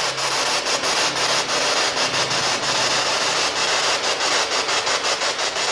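Spirit box scanning through radio frequencies: a steady hiss of radio static broken by rapid, irregular clicks as it sweeps.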